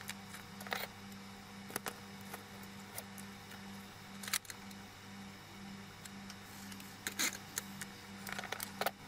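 Scattered light clicks and knocks of pliers and a laptop power-supply cable being handled and set down on a workbench, the sharpest about four seconds in and a cluster near the end, over a faint pulsing hum.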